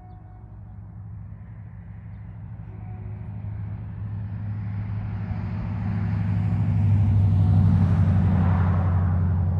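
A vehicle approaching and passing close, growing steadily louder and loudest about eight seconds in, over a steady low engine hum.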